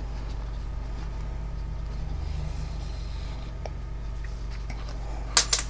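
Steady low hum of room noise, with faint ticks and rustles of a sewing needle and yarn being drawn through a crocheted toy. A short sharp rustle comes near the end.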